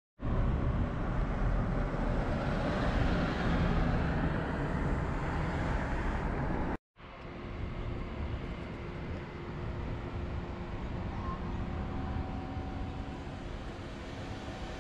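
Road and engine noise inside a moving car's cabin, cut off abruptly about seven seconds in; then a quieter steady outdoor hum of vehicles with a faint held tone.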